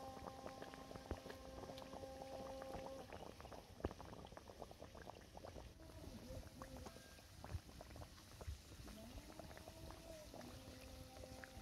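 Hot oil sizzling and crackling steadily around pakwan dough sticks deep-frying in a metal karahi, with a faint steady hum in the background during the first few seconds and again near the end.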